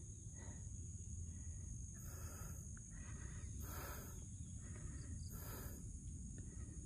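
A cyclist breathing hard after an uphill climb, one noisy breath about every second and a half. Behind it are a steady high insect drone and a low rumble.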